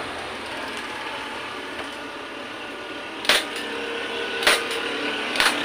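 Hand staple gun fired three times, driving staples through a motorcycle seat cover into the plastic seat base: three sharp clacks about a second apart, over steady background noise.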